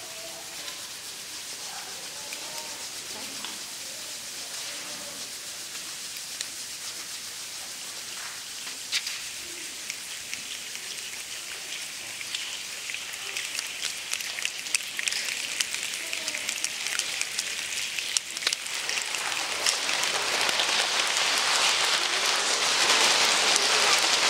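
A children's choir making the sound of a rainstorm with their hands: a soft hiss of rubbing hands with scattered sharp snaps, swelling steadily into a loud, dense patter like heavy rain.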